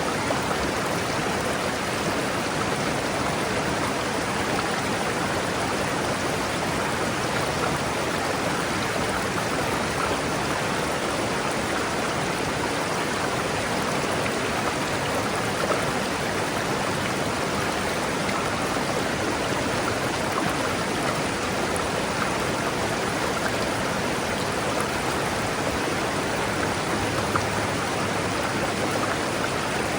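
River water rushing over rocks: a steady, even rush.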